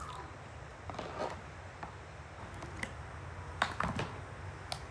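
Slime being kneaded and scooped by hand, making soft sticky clicks and crackles, with a few sharper clicks near the end, over a low steady hum.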